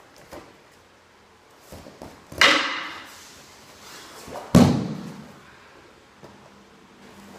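Two sudden loud impacts about two seconds apart during aikido sword-taking practice; the second and deeper one is a body thrown down onto the training mat.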